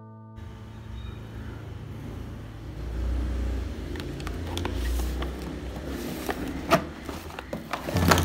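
A plastic storage drawer is slid open and paint tubes are handled inside it, giving a row of sharp knocks and clicks over a low steady rumble.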